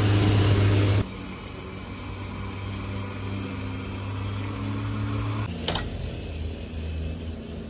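Corded electric lawnmower motor running with a steady hum, loud and close for about the first second, then dropping suddenly to a fainter, more distant hum. A single sharp click comes a little over five seconds in.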